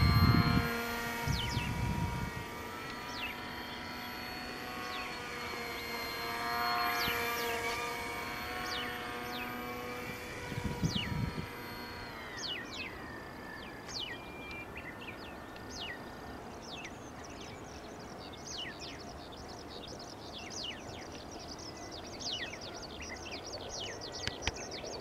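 Electric motor and propeller of a small radio-control airplane (HK-AP05 3000KV brushless motor, GWS 5030 prop) whining with a steady pitch that swells about seven seconds in, then cutting off about twelve seconds in as the plane comes down in the field. Many small birds chirp throughout, most densely after the motor stops, with low rumbles near the start and about eleven seconds in.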